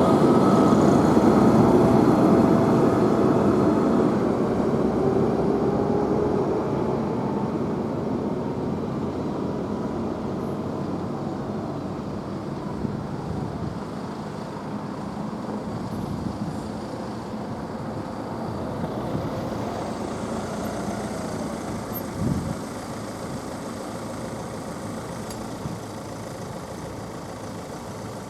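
A passing train dying away, its running noise loud at first and fading steadily, with faint steady tones that slowly glide lower.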